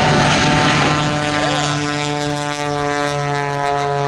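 Aerobatic biplane's propeller engine running at high power with a steady, even drone, with a loud rushing roar over it in the first second or so.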